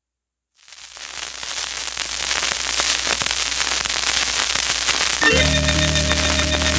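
Vinyl surface noise from a spinning 45 rpm single: dense crackle and pops in the lead-in groove under the stylus, fading in and growing louder. About five seconds in, the record's music begins with held notes under the crackle.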